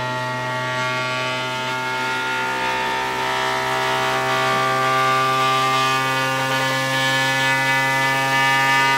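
QIDI Plus 4 3D printer running its input-shaping calibration, its stepper motors shaking the toolhead at a series of frequencies. The result is a loud buzzing hum made of many steady tones that shift slowly as it goes and grow a little louder.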